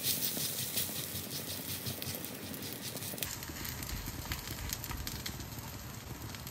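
Prawn-stuffed paratha frying in ghee on a hot tawa, a steady sizzle made of many fine crackles.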